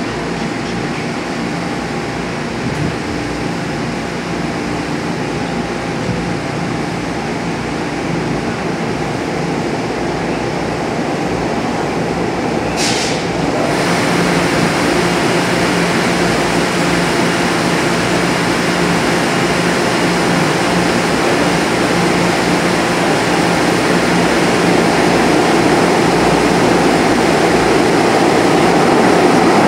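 Steady running hum and rumble of a light-rail train standing at an underground station platform with its doors open. A short hiss comes about thirteen seconds in, and after it a low hum sets in and the noise slowly grows louder.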